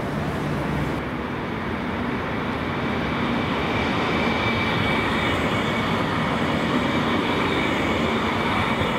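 Modern low-floor articulated tram rolling past close by on street track: a steady rolling rumble with a high, even electric whine, growing louder over the first few seconds and then holding steady.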